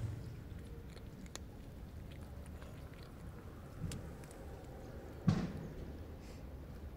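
A cat chewing food, with small faint clicks and a short louder noise about five seconds in.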